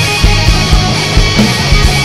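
Rock song playing: electric guitars and bass over a steady drum beat.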